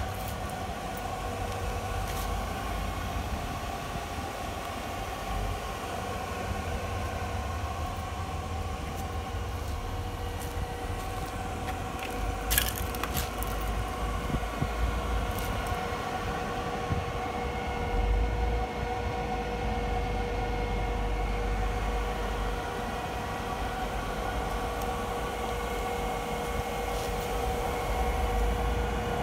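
Old industrial electric motor running with a steady hum and whine of several held tones, over a low uneven rumble, with one sharp click about twelve seconds in.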